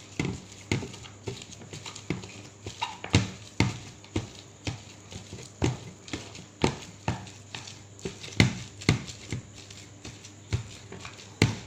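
Sticky homemade catfish bait dough with shredded chicken being mixed and worked in a bowl, giving irregular wet slaps and knocks about one to two a second.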